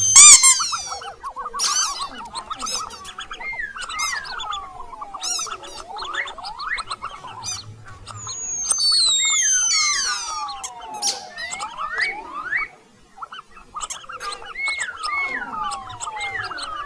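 Mouse squeak sound effects: a stream of high-pitched squeaks and chirps, several gliding down in pitch over about a second. The loudest burst comes right at the start.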